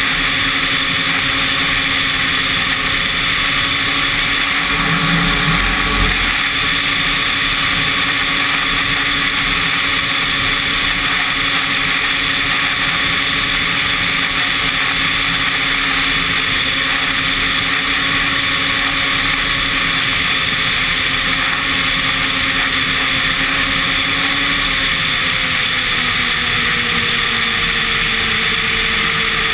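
Snowmobile engine running at a steady cruising pitch over a constant rushing hiss of riding. There is a brief low rumble about five seconds in, and the engine note falls gradually over the last few seconds as the sled eases off.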